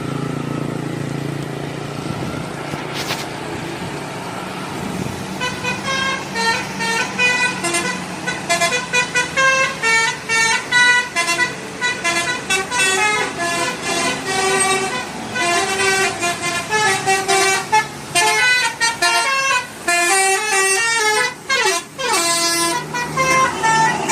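A bus's Basuri telolet horn plays a fast melody of quick, stepped horn notes from about five seconds in, with a falling slide of notes near the end. Before the melody starts, the bus engine runs steadily.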